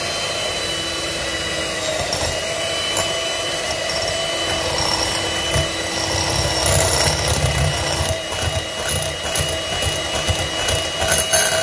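Electric hand mixer running at a steady whine, its beaters creaming room-temperature butter in a glass bowl. Uneven low rumbling comes from the beaters churning through the lumps of butter, heaviest in the middle.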